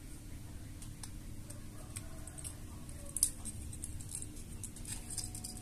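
Soldering iron working a wire joint: scattered faint crackling ticks of melting solder and flux, irregular and a little stronger about three and five seconds in, over a low steady hum.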